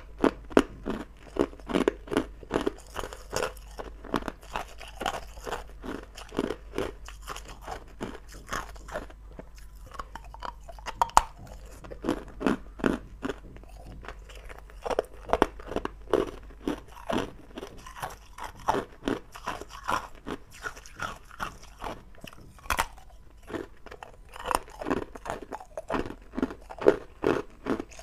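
Hard ice cubes being bitten and chewed close to the microphone: runs of sharp, crisp crunches, several a second, broken by short pauses.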